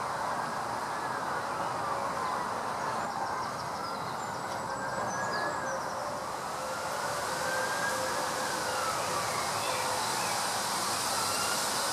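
Wind rustling through the leaves of a tree canopy, made blurrier by crude artificial reverb. A siren wails slowly up and down through it, rising and falling about every three seconds.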